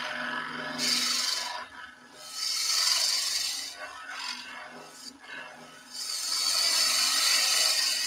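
A gouge cutting a dry timber spindle as it spins on a wood lathe: three hissing passes as the shavings peel off, the last and longest lasting over two seconds, light cleanup cuts along the surface. The lathe hums faintly underneath.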